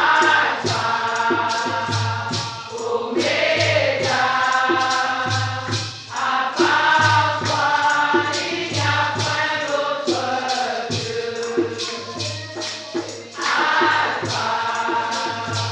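Many voices singing a worship song together, choir-style, over a steady beat with shaken percussion.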